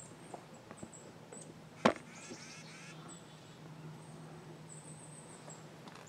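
A single sharp click about two seconds in, the loudest sound, followed by about a second of rapid high chirps. Faint high chirps continue over quiet outdoor background.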